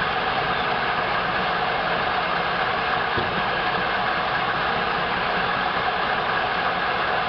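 Frick steam engine running a sawmill, a steady mechanical din with no clear beat or break.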